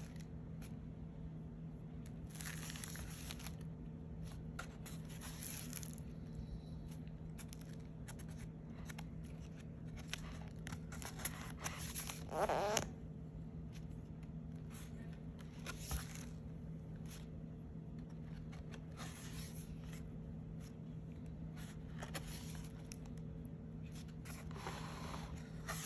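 Pages of a handmade kraft-cardboard art journal turned by hand, a rustle and rub of card and collaged paper every few seconds, the loudest a little before halfway. A steady low hum runs underneath.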